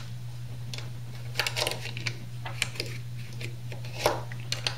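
UpLULA universal magazine loader pressing 9mm cartridges one by one into a stiff-sprung 17-round Taurus 809 pistol magazine: a string of sharp plastic-and-metal clicks, roughly one a second.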